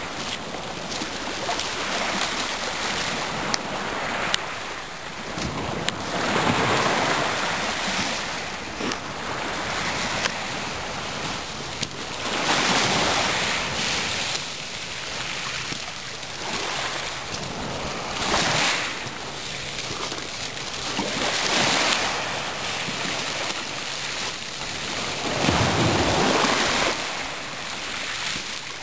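Small waves washing onto a pebble shore, a hiss that swells and fades every few seconds, with wind.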